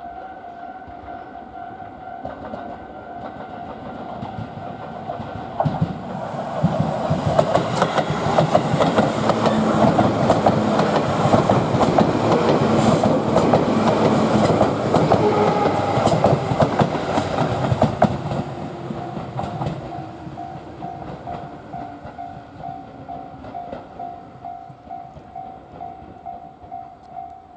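Electric commuter train passing close by on the Tobu Urban Park Line, its wheels clattering over the rails. It is loud from about six seconds in to about eighteen seconds, then fades. Under it a level-crossing warning bell rings with a steady pulsed tone, heard plainly before and after the train.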